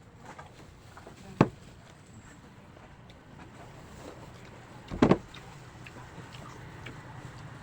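Two sharp thumps about four seconds apart, the second one doubled, over a steady low rumble that grows slightly louder near the end.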